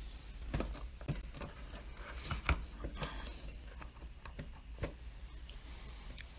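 Clicks and knocks of an electric blender motor being handled and fitted down into its plastic base housing, with the sharpest knock about two and a half seconds in.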